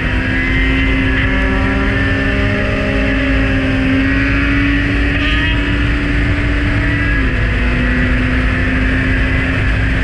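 Kawasaki Z900's inline-four engine running at steady road speed with wind rush on the camera's microphone. The engine note climbs slightly and then drops a little about seven seconds in.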